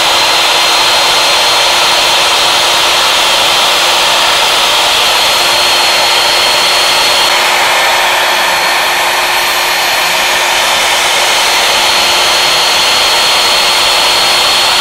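Router spindle of a CNC wood lathe running steadily at speed with a high whine while an end mill cuts a slot into a turned wooden cylinder.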